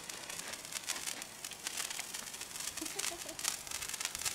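Handheld sparkler fireworks burning, spitting sparks with a steady, dense crackle.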